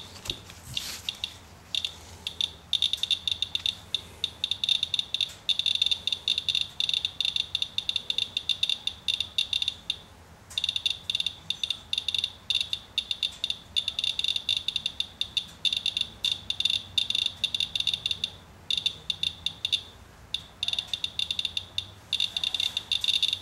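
Inspector handheld Geiger counter clicking fast and irregularly, one short high chirp per count, with a couple of brief lulls. The quick count rate is an elevated reading from a rainwater-wiped sample, which is called still very hot, about 20 times background.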